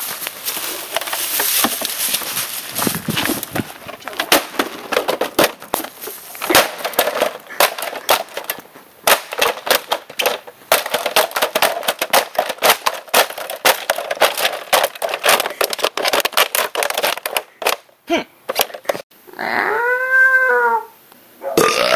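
Rapid, irregular sharp knocks and clatter, many hard impacts in quick succession, then near the end a short pitched sound that rises and falls.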